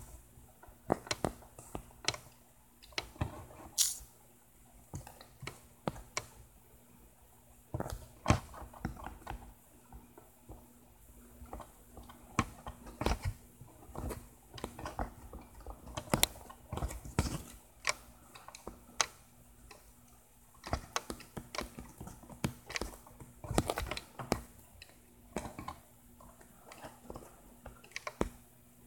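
Fingers tapping and handling a smartphone: irregular soft clicks and taps over a faint steady hum.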